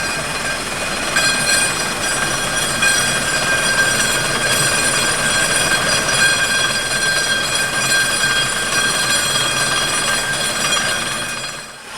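Vibratory deburring machine (a 'shaker') running loud, with metal parts rattling against each other in the vibrating tub as they are smoothed and deburred. It makes a steady, dense metallic din with many high ringing tones, and dips briefly just before the end.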